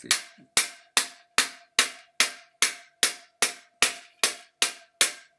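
Even, repeated tapping on the hub of a spoked trailer wheel with a hand tool, about two and a half sharp knocks a second, each followed by a brief metallic ring from the wheel. This is the plastic hub piece being knocked down into place.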